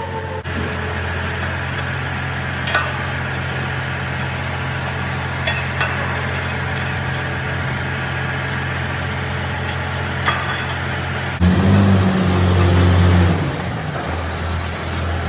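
Engine running steadily with a low, even hum and a few sharp clicks. About eleven seconds in it runs louder for about two seconds, with a high whistle rising and then falling away.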